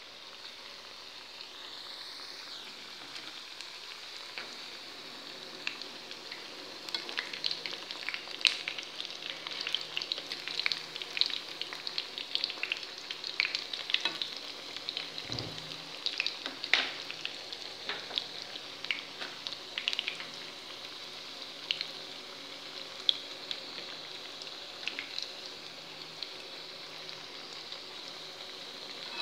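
Diamond-shaped pieces of makrout dough deep-frying in hot oil in a pan, turned with a fork: a steady sizzle with sharp crackles and pops that come thick from several seconds in and thin out near the end.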